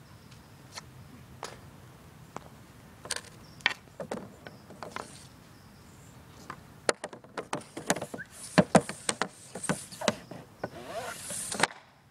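Sharp clicks and taps of an Easton Mako hockey stick and puck on a plastic shooting pad: a few scattered taps at first, then a quick irregular run of louder taps in the second half.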